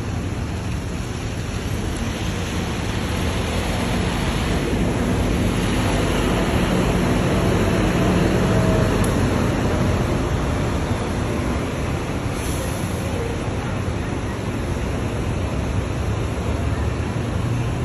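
Rumble of city buses running at a bus interchange, with a nearby bus engine swelling to its loudest about halfway through and then easing off.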